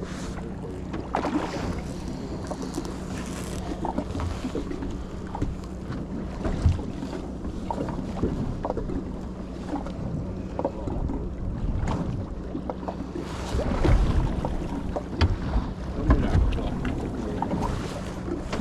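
Sounds aboard a small fishing boat at sea: water against the hull and wind on the microphone over a steady low engine hum, with scattered knocks and clicks on board and a few heavier low thumps near the end.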